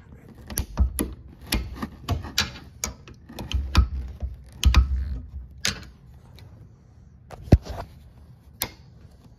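Flathead screwdriver and fingers working the plastic cable clip of a recliner's release cable loose from its steel mechanism bracket: a run of irregular clicks, scrapes and knocks, with one sharp click about seven and a half seconds in.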